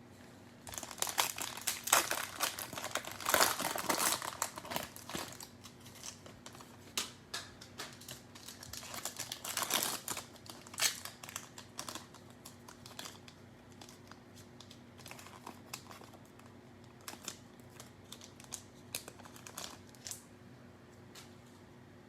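Cellophane wrapper of a trading-card pack being torn open and crinkled, thickest in the first few seconds and again about ten seconds in, followed by scattered light clicks.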